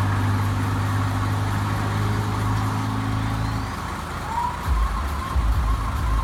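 Motor vehicle engine running with a steady low hum, which gives way to a heavier, uneven low rumble about four and a half seconds in. A faint high tone wavers in the second half.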